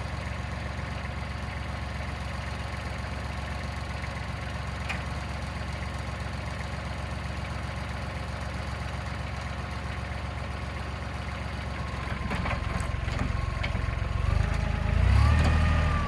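Compact tractor's diesel engine running steadily, then working harder and louder in the last few seconds as the front loader bucket lifts a large tree stump out of its hole.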